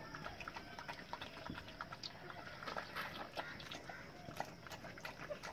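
Newborn Rottweiler-cross puppies nursing, faint and irregular: small clicking suckling sounds and occasional short, high squeaks.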